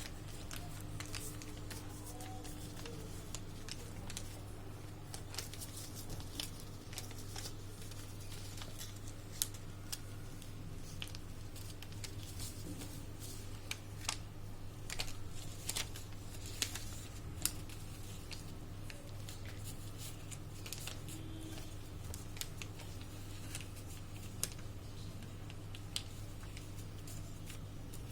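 A sheet of paper being handled and folded, as for a paper aeroplane: scattered light crackles and taps, more of them in the middle, over a steady low hum.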